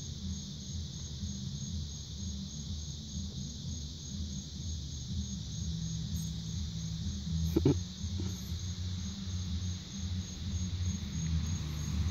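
An evening chorus of insects chirping, a steady high pulsing trill, over the thudding bass of a neighbour's music. A single short knock comes a little past the middle.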